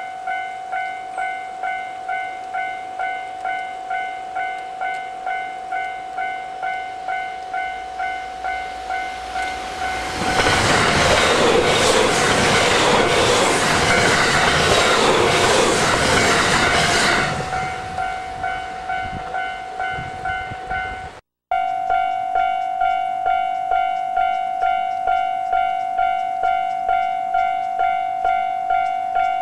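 Japanese level-crossing warning bell ringing a steady, repeated ding, about three strikes every two seconds. A train passes over the crossing for about seven seconds in the middle, its wheels clattering over the rail joints and drowning out the bell. About two-thirds of the way in the sound cuts out for an instant, then the bell goes on ringing.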